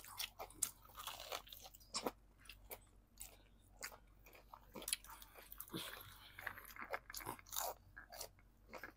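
Crispy fried chicken being bitten and chewed close to a clip-on microphone: irregular sharp crunches of the fried breading, with wet chewing between them.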